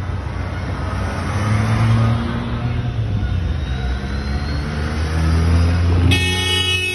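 Engines of cars and a motorcycle with sidecar driving past one after another, picking up speed as they pull away. About six seconds in, a car horn sounds and is held for over a second.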